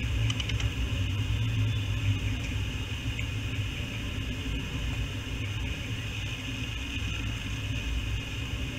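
Steady low rumble with a constant high-pitched hiss, and a few faint clicks about half a second in.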